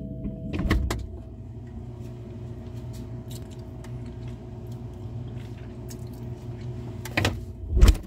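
Refrigerator door opened with a pair of clunks about half a second in, then shut near the end with two thuds, the last one the loudest, heard from inside the fridge. A steady low hum runs underneath.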